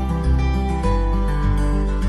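Instrumental background music: plucked acoustic guitar notes over a held bass, changing chord a little under a second in.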